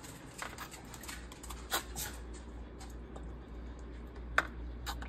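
Scattered light clicks and taps as a turkey in a disposable aluminium roasting pan is brushed with a basting brush on an open oven rack, with two sharper clicks, one a little under two seconds in and one near the end.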